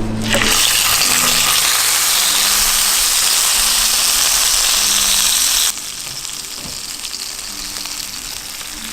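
Tri-tip searing in a hot cast iron pan: a loud, steady sizzle that starts at once and drops abruptly a little past halfway to a quieter sizzle.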